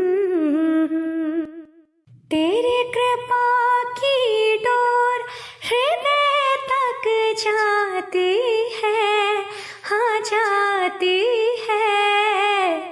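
A singer opening a Hindi devotional song (bhajan) with a wordless, hummed melody of long, wavering held notes, breaking off briefly about two seconds in.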